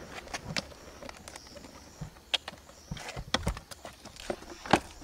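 Irregular knocks, taps and light scraping of cardboard boxes being handled, opened and set down on the ground, with the loudest knock near the end.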